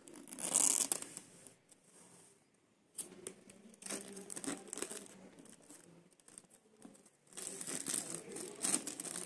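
Clear plastic wrap being torn open and peeled off a phone's cardboard box, then crumpled in the hand: crinkling in bursts, loudest about half a second in and again near the end.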